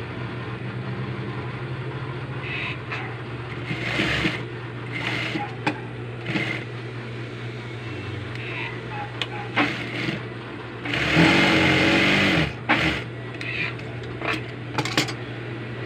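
Juki industrial sewing machine with its motor humming steadily, then running a short stretch of stitching for about a second and a half, about eleven seconds in. Scattered rustles and light knocks come from fabric being folded and fed under the presser foot.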